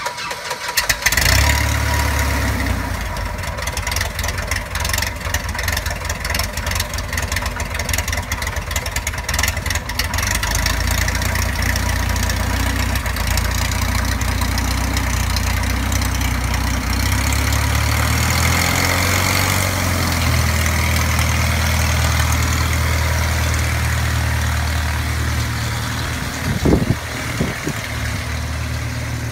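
Skyote Aeromarine Skyote biplane's single piston engine starting about a second in, then running steadily with the propeller turning. The engine note shifts about two-thirds of the way through, and there are a few brief louder bursts near the end as the biplane taxis.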